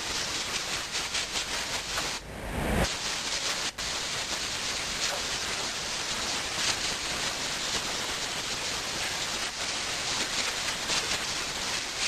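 Steady, even hiss of noise with no clear pitch or rhythm.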